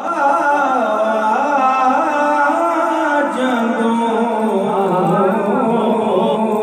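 A man singing a solo devotional recitation for Imam Hussain into a microphone, a slow melody of long, wavering held notes. A steady low hum runs underneath.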